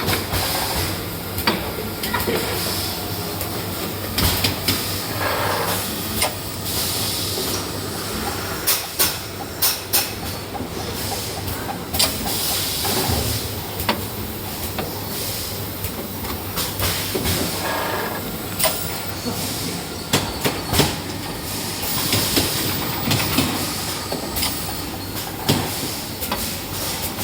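A machine running with a steady hissing noise and many irregular sharp clicks and clacks.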